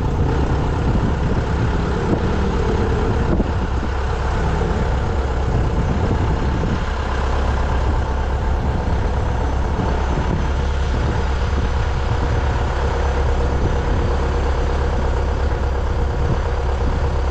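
Heavy diesel farm engine running steadily under load, a deep, even low rumble with no breaks.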